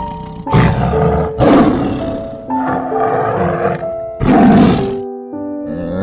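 A large animal giving four loud, harsh calls, each about a second long, over background music.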